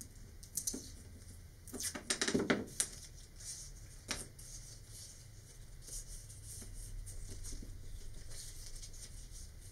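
Masking tape pulled off the roll and torn, a quick crackle about two seconds in, followed by a single click and light rustling of a paper sheet being wrapped and taped around a cardboard tube.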